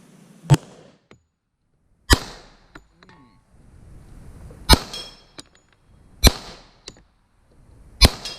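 Five shots from a 10mm handgun, fired one at a time about one to two and a half seconds apart, at a steel spinner target. After some of the shots comes a much fainter short tick, which fits a bullet striking the steel.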